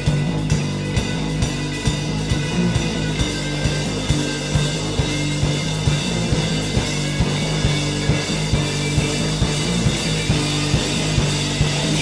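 Live rock band playing an instrumental passage: electric guitars and bass guitar holding chords over a steady drum-kit beat, with no vocals.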